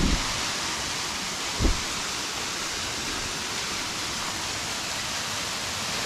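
Thin mountain waterfall falling down a rock face, a steady, even rushing hiss. There is a short low thump about a second and a half in.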